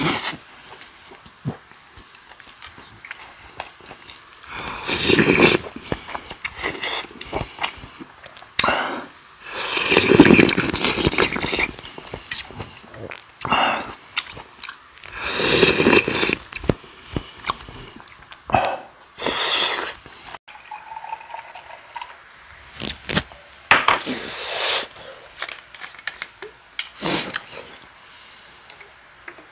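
Close-miked mukbang eating sounds: a man chewing and slurping food from a spoon, in loud bursts every few seconds. Near the end, water is poured from a plastic bottle into a glass.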